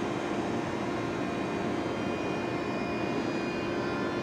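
Eurostar Class 374 (Siemens Velaro e320) electric train approaching slowly: a steady rumble with high whining tones from its traction equipment, some of them rising a little in pitch about halfway through.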